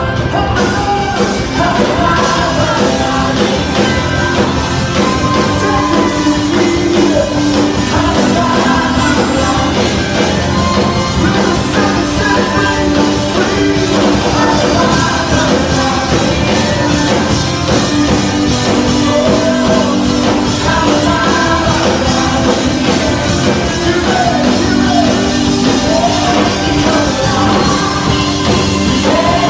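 A live worship band plays a steady, loud song while voices sing over it.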